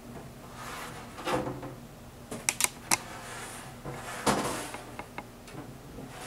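Metal putty knife scraping and swishing through wet acrylic gesso on gatorboard in short strokes, working it into a textured finish. A few sharp clicks come about two and a half seconds in.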